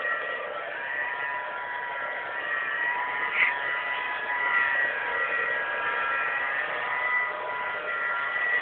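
New Holland TS125A tractor running steadily under load while pulling a plough through wet soil: constant engine noise with a steady high-pitched whine over it.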